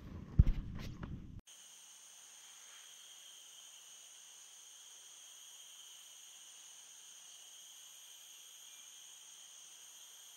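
A few knocks, one of them sharp and loud, in the first second and a half. Then a steady chorus of insects: several high-pitched tones held without a break.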